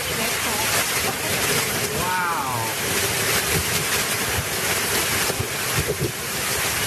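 Torrential tropical rain pouring down in a loud, steady hiss, with wind buffeting the microphone. About two seconds in, a short falling voice-like sound cuts through briefly.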